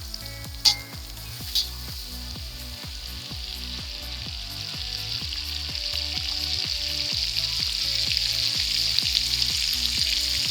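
Butter sizzling as it melts in a hot kazan, the sizzle growing steadily louder. Two sharp clicks in the first two seconds.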